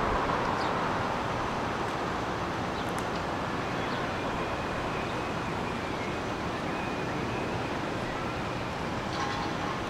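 Steady outdoor city ambience: an even rush of distant traffic, with a passing vehicle fading away in the first second or so. A few faint short chirps sound over it.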